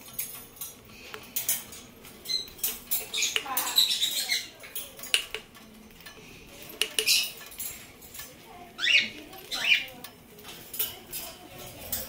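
Senegal parrot gnawing a coconut shell with its beak: irregular sharp cracks, crunches and scrapes as it bites off pieces of shell and flesh.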